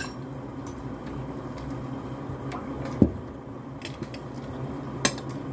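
Quiet eating at a table: a fork clicking against a glass bowl of noodles a few times, the sharpest click about five seconds in, with a dull thump about three seconds in, over a steady low hum.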